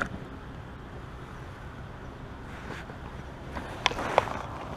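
Low steady rumble of handling and wind noise on the camera's microphone, with two sharp clicks close together about four seconds in.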